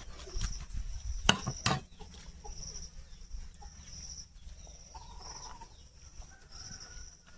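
Chickens clucking, with a steady high chirping of insects that comes and goes. Two sharp clicks about a second and a half in are the loudest sounds.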